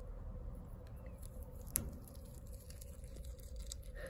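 Guinea pig chewing a leafy green, faint small crunching clicks, with one sharper click a little under two seconds in.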